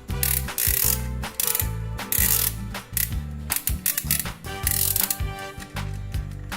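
Background music with a steady bass line, overlaid by a loud mechanical ratcheting clatter, like gears, that comes in several bursts.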